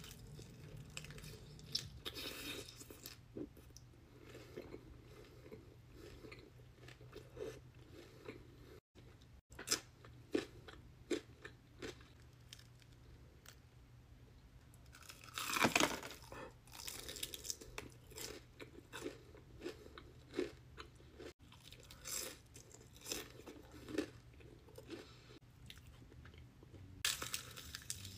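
Close-miked crunching bites and chewing of crispy double-fried Korean fried chicken and a battered onion ring, a run of sharp crunches between quieter chewing. The loudest crunch comes a little past halfway through.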